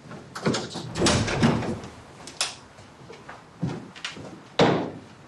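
A door being handled: a series of separate clunks and knocks, with a loud cluster about a second in and the loudest clunk near the end.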